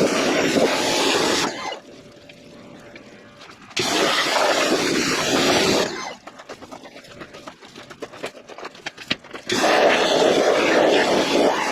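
Pressure washer spraying water hard against a mud-caked Jeep JK frame, in bursts: the spray stops about a second and a half in, starts again about four seconds in, stops again about six seconds in, and starts again about two seconds before the end. The second pause has scattered crackles.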